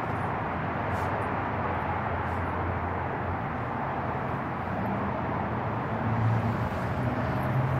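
Steady low outdoor background rumble with a hum, swelling slightly about six seconds in.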